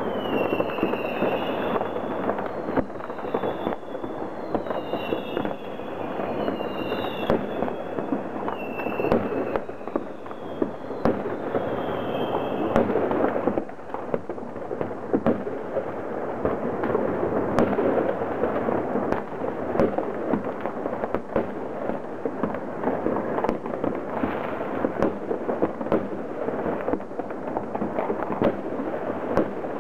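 New Year's Eve fireworks going off all around: a continuous din of bangs and crackling firecrackers with many sharp reports. Through roughly the first half, short high whistles falling in pitch repeat about every second, then stop.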